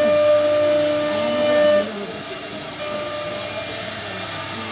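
CNC router spindle running with a steady high-pitched whine, loud for the first couple of seconds, then dropping suddenly to a quieter steady whir and hiss.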